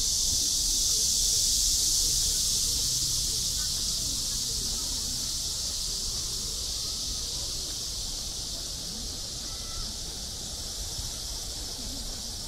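A steady, high-pitched insect chorus, slowly getting a little quieter, with faint voices of people underneath.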